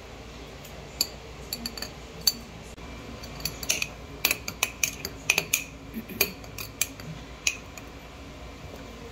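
A metal spoon clinking against the inside of a glass jar as kimchi is pressed down into it: a string of sharp clinks, thickest in the middle.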